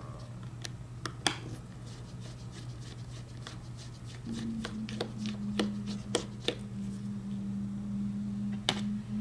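Small pentalobe screwdriver taking out the two bottom screws of an iPhone X: light, irregular metal clicks and ticks of the tip in the screw heads and of fingers handling the phone. A low steady hum comes in about four seconds in.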